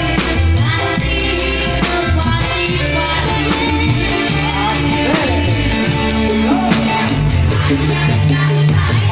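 Live band music with a singer: a strong bass line and a steady drum beat under a voice that glides up and down in pitch, played loud.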